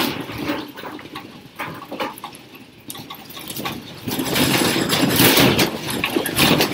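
Classroom shaking in an earthquake: a rumbling, rattling noise, with desks and chairs clattering as people scramble under the tables. It grows louder and denser about four seconds in.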